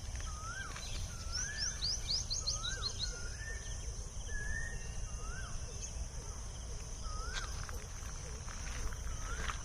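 Wild birds calling: one repeats a short whistled note that rises and falls, about once a second, and another gives a quick run of high chirps in the first few seconds. Under them run a steady high hiss and a low rumble.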